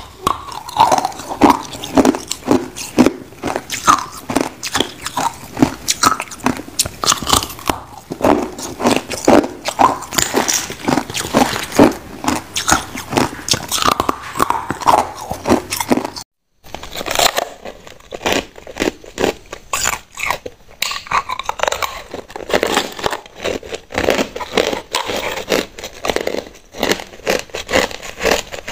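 Ice being bitten and crunched between the teeth, clear hard ice and then white frosty ice: a fast, uneven run of sharp cracks and crunches, several a second, with a moment of silence a little past halfway.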